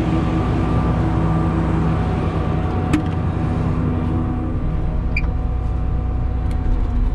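Claas Lexion 670 combine harvester's diesel engine running steadily, with a sharp click about three seconds in and a short high chirp about five seconds in.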